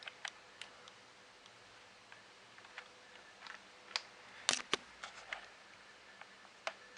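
Keys of a Sinclair ZX Spectrum+ keyboard, newly fitted with a replacement membrane, being pressed one at a time. There are sparse single clicks, with a quick group of three a little past halfway.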